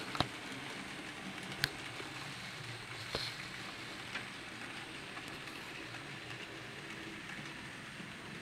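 Graham Farish N gauge Class 66 model locomotive and its freight wagons running on the track, a steady light whirring rattle of the motor and wheels. A few sharp clicks come in the first few seconds.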